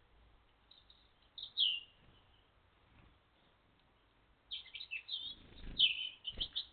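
Small garden birds chirping: a couple of short chirps about a second and a half in, then a quick run of chirps over the last two seconds, with a few low thuds among them.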